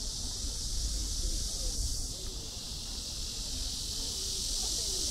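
Steady high-pitched buzzing insect chorus over a low outdoor rumble, growing a little louder near the end.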